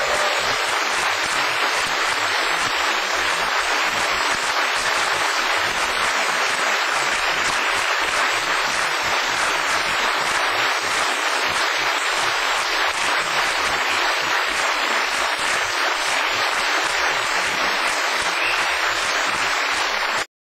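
Large audience applauding steadily, a dense even clapping that cuts off suddenly near the end.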